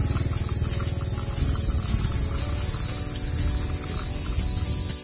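Chorus of cicadas shrilling steadily and loudly, a continuous high-pitched buzz. Underneath, a passing motor scooter's engine fades away over the first few seconds.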